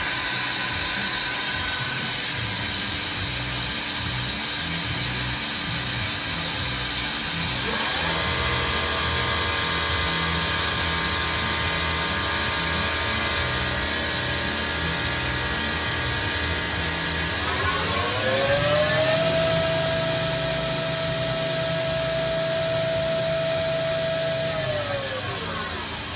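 Bridgeport VMC 600 milling machine spindle running up to speed. The pitch of its whine rises about eight seconds in and holds, climbs again to a higher steady whine a little after halfway, then winds down near the end, over the machine's steady hum. This is the spindle on test with new bearings in its encoder drive shaft, running without the earlier sharp mechanical noise.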